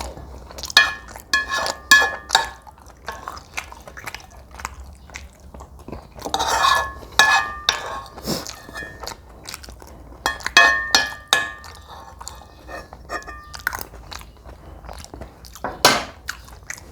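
A person eating close to the microphone: chewing and crunching mouthfuls of food, with utensils scraping and clinking against a dish in a few ringing stretches.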